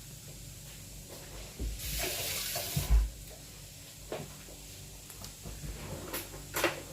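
Bamboo-shoot salad being stirred and tossed together with freshly chopped herbs. A rustling, scraping stretch comes about two seconds in, followed by a few knocks of the utensil against the dish.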